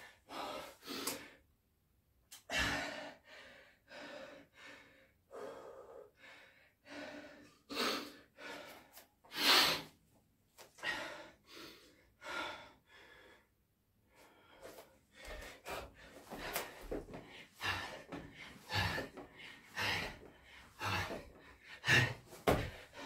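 A man's heavy, gasping breaths, about one a second and coming quicker in the second half: he is winded from Navy SEAL burpees and push-ups.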